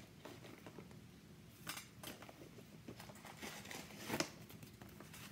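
Tissue paper rustling and crinkling as it is pulled out of a leather handbag's pocket, with a few sharper crinkles, the loudest about four seconds in.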